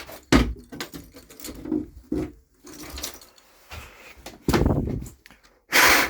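Handling noise from working on equipment: a series of knocks, clicks and rustles, with a solid thump about a third of a second in and a short loud hiss near the end.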